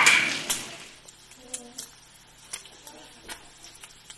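Beef tongue slices frying in butter in a cast iron skillet: a loud sizzle for about the first second, then, after a sudden drop, a quiet crackle with sharp pops of spattering butter about once a second.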